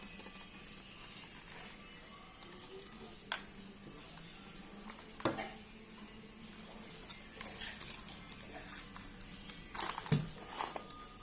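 Aluminium tripod being handled, its pan handle and joints giving scattered clicks and knocks, a few at first and more often in the second half, the loudest about ten seconds in.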